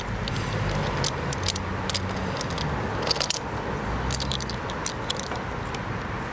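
Motorcycle roller chain and metal tools being handled, giving scattered light metallic clinks and jingles over a steady low hum.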